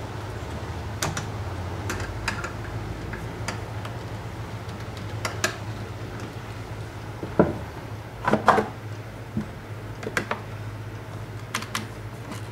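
Plastic clicks and knocks from a Stihl 036 chainsaw's plastic covers being handled and the top cover being seated back over the air filter, with a steady low hum underneath. The loudest few knocks come about two-thirds of the way through.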